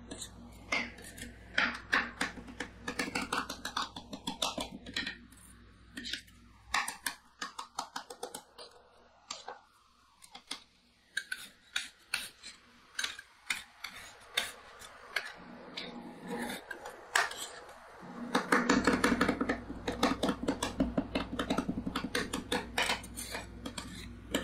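Two metal spatulas chopping and scraping on a stainless-steel rolled-ice-cream pan, working crumbled wafer cookies into the frozen base: quick, irregular metallic taps and clicks. They are sparser in the middle and busiest and loudest near the end.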